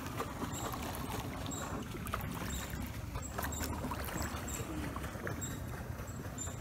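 Kayak paddling on calm river water: paddle blades dipping and water sloshing along the plastic hull, with a few light knocks.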